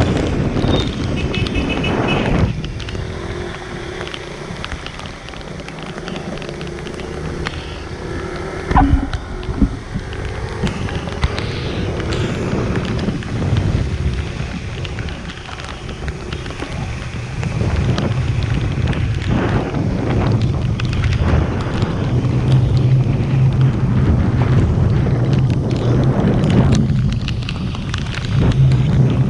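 Wind buffeting the microphone on a moving motorcycle. From about halfway through, a steady low engine hum runs underneath, and a single knock comes about nine seconds in.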